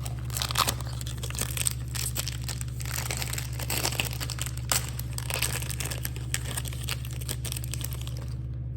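Foil trading-card pack wrapper crinkling and tearing as it is handled and opened by hand, with irregular sharp crackles throughout.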